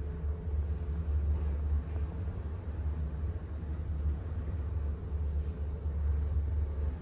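Steady low rumble of a KONE MonoSpace 500 machine-room-less passenger lift car travelling between floors, heard from inside the car.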